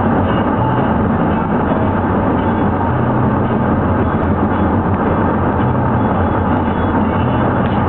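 Steady road and engine noise inside a moving car's cabin, a constant low rumble.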